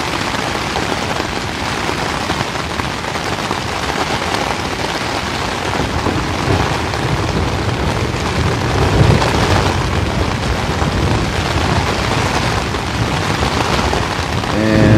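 Steady downpour of rain in a thunderstorm, with a low rumble of thunder swelling about halfway through.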